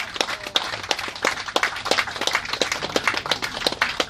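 Scattered applause: hands clapping in sharp, irregular claps, several a second.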